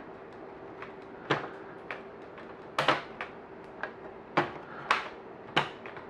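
Bottom access cover of a Dell Latitude E6520 laptop being pressed back onto the base, its clips clicking into place in a series of sharp snaps a second or so apart.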